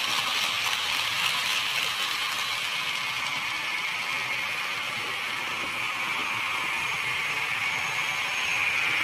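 HO scale model trains running on the layout's track, giving a steady mechanical running noise of wheels on rail and small motors.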